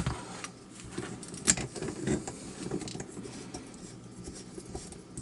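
Light clicks and scratching of a metal padlock and lock-picking tools being handled on a workbench, with a sharper click right at the start and another about a second and a half in.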